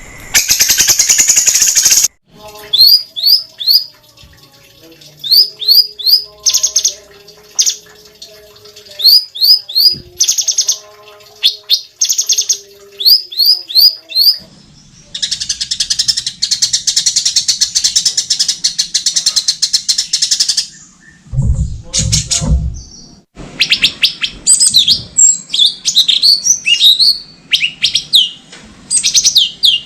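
Sooty-headed bulbul (cucak cungkok) singing without pause: repeated groups of three or four quick rising whistles, then a harsh buzzing rattle held for about five seconds, then a fast run of varied sharp notes. A few dull low thumps come just after the rattle.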